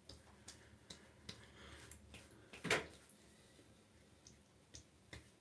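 Faint soft rubbing and small clicks as fingers are run over the skin of the face. One short, louder noise comes about two and a half seconds in.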